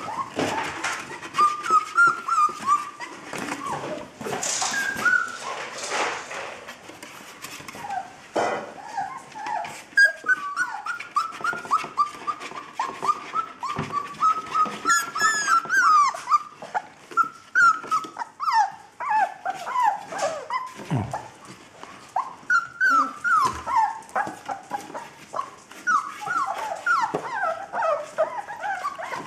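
Puppies whining and whimpering in short, high-pitched calls that rise and fall, one after another, with scattered knocks and scratching.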